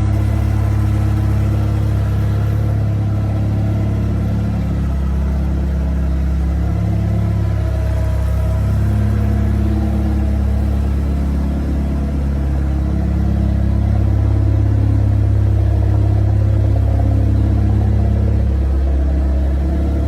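1989 Lancia Delta Integrale's turbocharged 2.0-litre four-cylinder engine running at a steady low speed, close to idle, its pitch wavering slightly.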